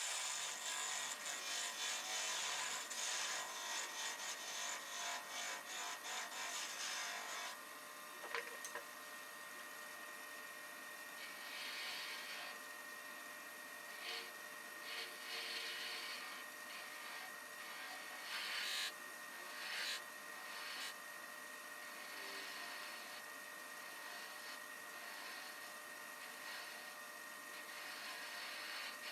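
A hand tool rubbing against wood in quick strokes for about the first seven seconds, then in short, scattered strokes.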